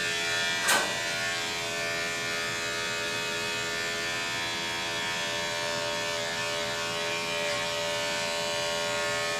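Andis five-speed electric pet clipper running steadily as it clips fur, a constant even hum, with one short click about a second in.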